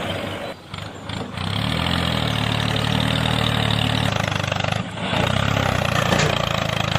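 Tractor engine running steadily at a low even pitch, dipping briefly about half a second in and again near the five-second mark.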